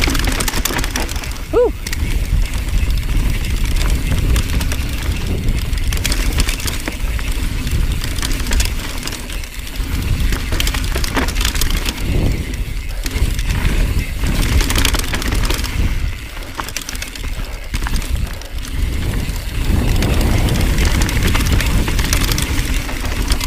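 Mountain bike riding fast down dirt singletrack: wind buffeting the camera microphone over the hiss of knobby tyres on dirt, with the bike rattling and clicking over bumps. A brief squeak about a second and a half in.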